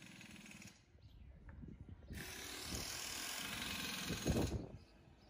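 Compressed air hissing from a shop air hose, a steady loud hiss starting about two seconds in and lasting about two and a half seconds, with a few low knocks near its end.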